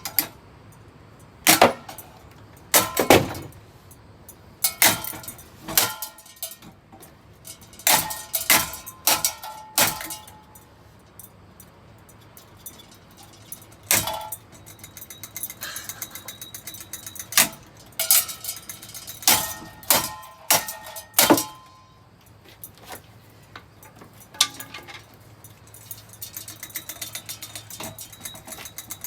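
Ceiling fan being smashed: a string of hard blows landing on it, with metal clangs that ring briefly, some singly and some in quick runs of three or four. Near the end a fast, even rattle sets in over a low hum, as the battered fan keeps spinning.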